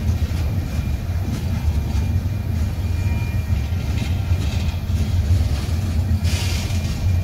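Tank cars of a freight train rolling past, a steady low rumble of steel wheels on the rails, with a brief hiss about six seconds in.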